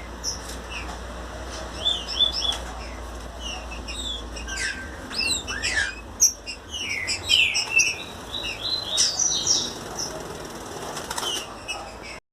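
Two green-winged saltators (trinca-ferro) singing against each other in a fibra contest, a dense run of short, quick whistled phrases that rise and fall and overlap, mixed with a few short sharp rustling noises.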